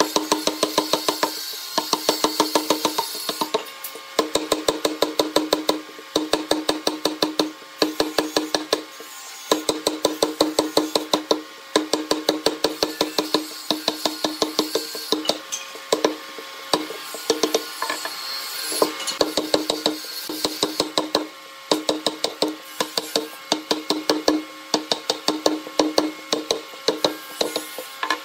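Wooden or rubber mallet driving a steel chisel into a large wooden block, in quick runs of about five or six blows a second with short pauses between runs, as chips split off. The blows ring with a steady low note.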